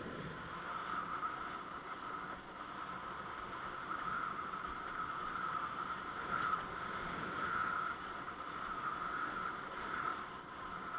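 Windsurf board sailing, with water rushing along the hull as a steady hiss that swells and eases every second or so.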